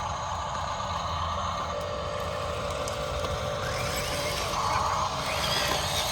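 Radio-controlled 1:16-scale construction machines running: a steady mechanical whine over a low rumble. The pitch rises and falls briefly near the end.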